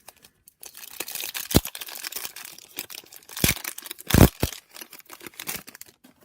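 Trading-card pack wrapper crinkling and being torn open, with a few sharp knocks, the loudest about four seconds in.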